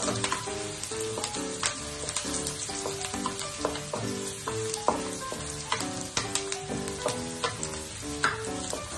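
Chopped onions sizzling as they fry in hot oil in a wok, with a wooden spoon scraping and tapping against the pan as they are stirred. Light background music with a regular melody plays underneath.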